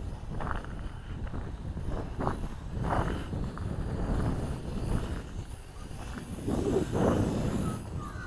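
Wind buffeting the microphone in gusts, a low rumble that swells and falls every second or two.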